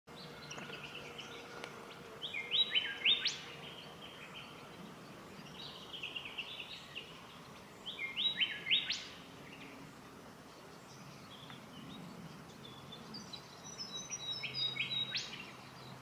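Rufous fantail singing: about five short phrases of high, squeaky notes that step up and down in pitch, each ending in a sharp high chip, coming every few seconds.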